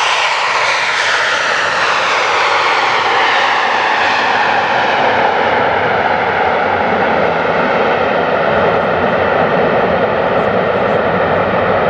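Loud, steady engine noise of a military aircraft flying low overhead on its landing approach, with a whooshing tone that slowly falls in pitch as it passes.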